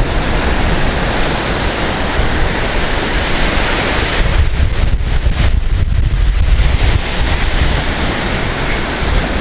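Surf washing up a sandy beach, with wind rumbling on the microphone; the rumble is heaviest about four to seven seconds in.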